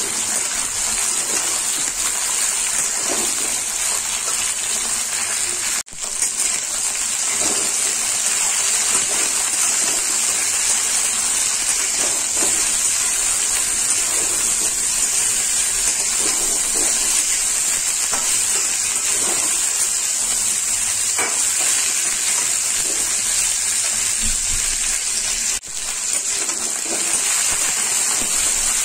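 Moringa drumstick pieces and potatoes sizzling steadily in hot mustard oil in a steel kadhai over a high flame, with a spatula now and then scraping and stirring against the pan. The sizzle drops out for a moment twice.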